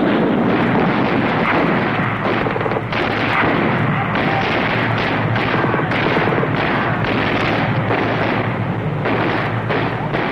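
Tank gunfire and explosions in a continuous loud barrage, the blasts and their rumble running together without a break. This is the M48A3 tank's 90 mm gun firing HE rounds at a target. The sound is dull, with little high end, as on an old film soundtrack.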